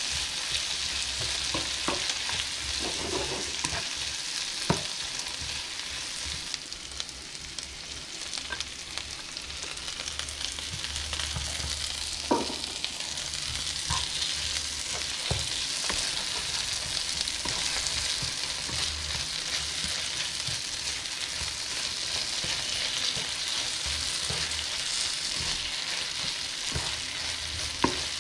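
Sliced peppers, onion and carrot sizzling in a frying pan while a spatula stirs them: a steady hiss, with a few sharp knocks of the spatula against the pan, one about 5 seconds in, one near the middle and one near the end.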